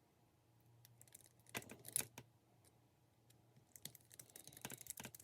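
Faint clicks and light taps of a small screwdriver and a tiny motor screw as the screw is driven into the motor mount of a 1/24-scale RC crawler. A few sharper clicks come about two seconds in, then a run of quick light ticks near the end.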